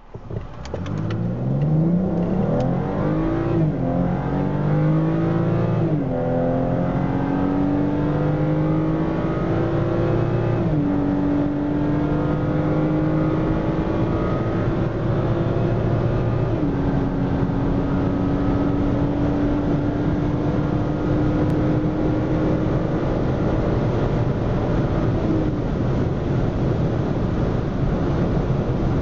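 The turbocharged 3.0-litre inline-six of a standard, untuned BMW X3 xDrive35i (F25) accelerating hard from 80 to 180 km/h, heard from inside the cabin. The engine note climbs and then drops in pitch about four times as the automatic gearbox upshifts, then rises slowly in top gear over steady tyre and wind noise.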